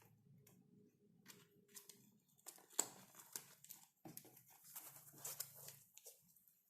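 Faint, irregular small clicks and scrapes of plastic keycaps being handled during an unboxing, the sharpest click about three seconds in.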